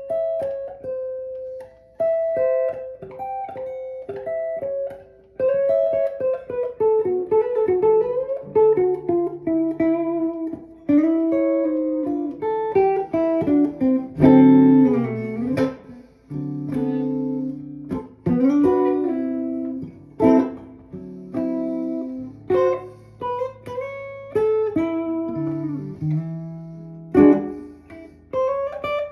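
Semi-hollow electric guitar played through an amp: an improvised blues of single-note lead phrases with string bends, mixed with some chords, in short phrases with brief gaps.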